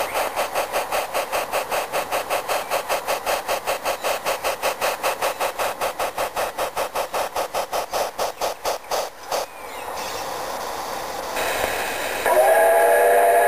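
Garden-scale steam locomotive chuffing steadily at about five beats a second as it runs up to the train. The chuffing stops after about nine seconds, leaving a quieter hiss, and a steady multi-note whistle sounds near the end.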